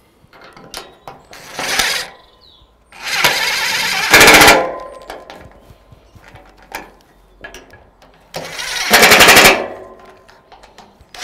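Cordless impact driver running bolts into an aluminium pergola frame in several short bursts: the motor spins, then the tool hammers rapidly as each bolt tightens down.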